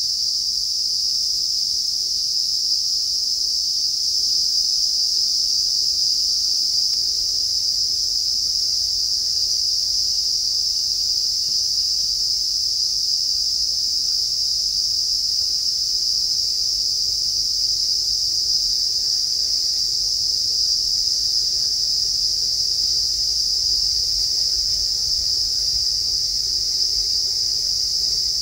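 Steady, high-pitched buzzing of an insect chorus in trackside scrub, unchanging throughout. A faint low rumble from an approaching train builds underneath near the end.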